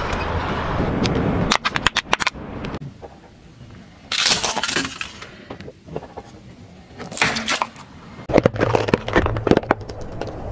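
A car tyre rolling slowly over objects on asphalt and crushing them: crunching as it flattens a pile of wheat crackers, then a string of sharp cracks and snaps, with further bursts of crackling and cracking through the rest.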